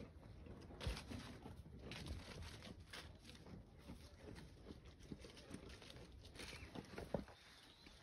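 Goat foraging on leaf-strewn ground: faint, irregular rustling and tearing of leaves as it nibbles, with a couple of sharper knocks, about a second in and near the end.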